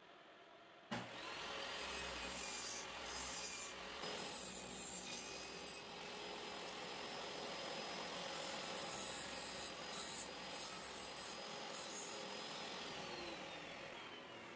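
DeWalt jobsite table saw starting up about a second in and ripping a quarter-inch board down the middle. Near the end it is switched off and spins down, its whine falling in pitch.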